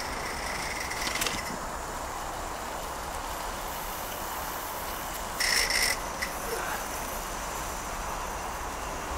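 Steam hissing from a small live-steam Mamod Double Fairlie model locomotive: a high hiss that cuts off about a second in, then a short half-second burst of hiss near the middle, over a faint steady background hiss.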